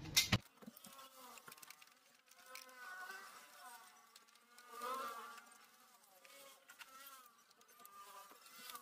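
A flying insect buzzing faintly, its pitch wavering up and down as it comes and goes in short spells, louder twice in the middle.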